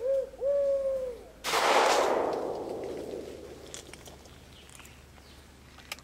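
Two hooting notes, a short one and then a longer steady one, like a pigeon's coo. About one and a half seconds in, a single gunshot rings out and its echo dies away over about two seconds.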